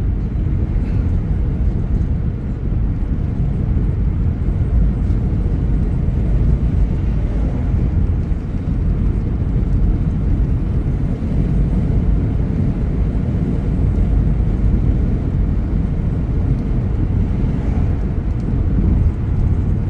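Steady low rumble of a car being driven, road and engine noise heard from inside the cabin.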